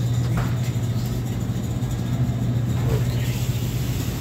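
A steady low mechanical hum that holds an even pitch and level throughout.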